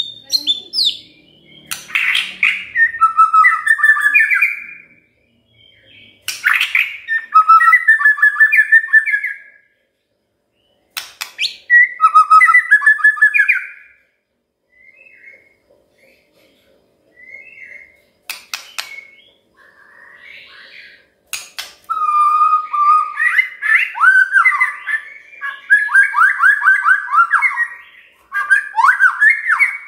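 White-rumped shama singing: bursts of rapid whistled phrases, each opening with a sharp click-like note, separated by short pauses with a few soft notes. From about two-thirds of the way in, the song runs on almost without a break.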